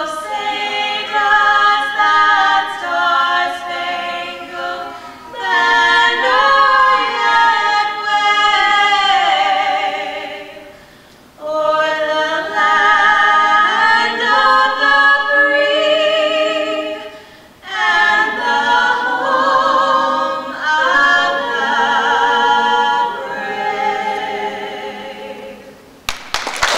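A small vocal group singing a cappella in harmony, the voices held with vibrato. The phrases break briefly about 11 and 17 seconds in. Applause breaks out as the song ends, right at the end.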